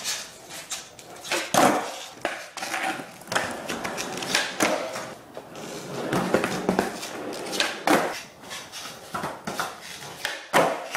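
Skateboard wheels rolling on a concrete floor, with repeated sharp clacks and slaps of the board's tail popping and the deck landing. The knocks come irregularly, a handful spread over several seconds.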